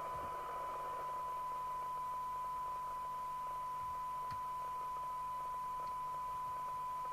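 Steady 1 kHz test tone with hiss around it, the signal generator's modulation received and demodulated by a UK FM CB radio during receiver IF alignment, with a couple of faint ticks.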